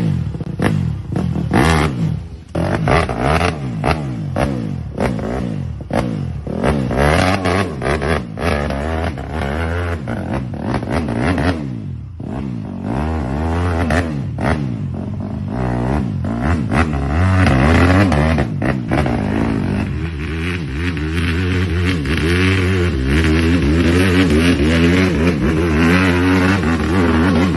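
Kawasaki KMX150 two-stroke dirt bike engine, fitted with an Athena cylinder and a full FMF exhaust, revving hard under load on a steep climb, its pitch rising and falling with constant throttle blips. From about twenty seconds in it holds a steadier, louder run.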